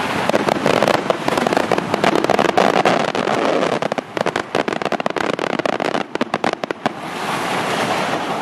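Aerial firework shells bursting over the sea, with dense rapid crackling that thins to scattered crackles about four seconds in and dies out about seven seconds in. A steady rushing noise is left at the end.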